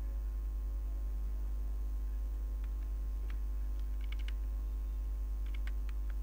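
Steady low electrical hum, with a few faint clicks from computer input: one about three seconds in, a quick cluster about four seconds in, and several more near the end.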